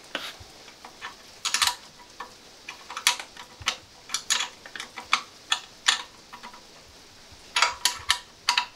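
Hand socket ratchet clicking in short bursts of strokes as it tightens the nuts on a motorcycle exhaust silencer's hanger mount, with a few metal clinks of the tool.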